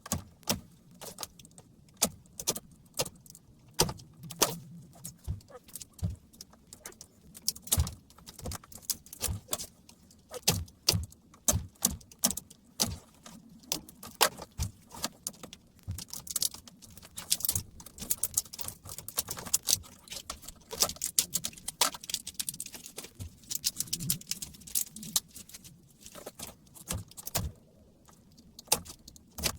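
Irregular sharp clicks, clacks and clinks of hard plastic and metal: a laptop battery pack being worked open by hand with tools, its casing and cells knocking.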